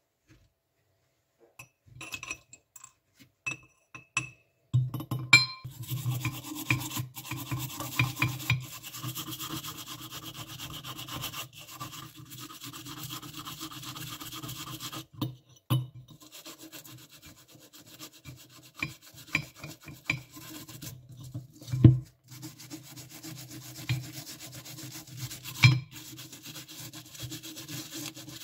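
Toothbrush bristles scrubbing the metal clip mechanism of a detachable pan handle: a steady rubbing scrub that starts after a few light clicks and clinks, with a couple of brief pauses.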